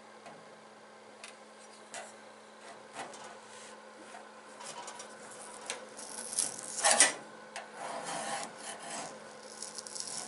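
Stickers being scraped and peeled off a metal toolbox: irregular scraping and rubbing with a few small clicks, the loudest scrape a little past the middle.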